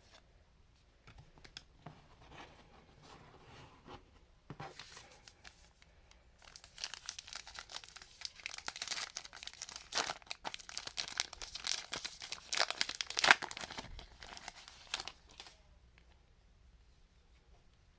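A trading-card pack wrapper being torn open and crinkled by hand: light handling at first, then a dense crackling of the wrapper for about nine seconds that dies away near the end.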